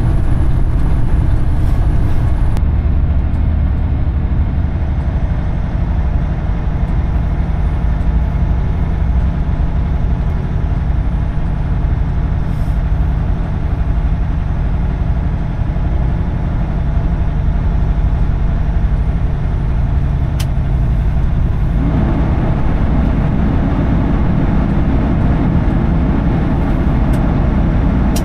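Semi-truck driving on the highway: steady diesel engine drone and road noise heard from inside the cab. About 22 seconds in, a coarser rumble from the road comes in.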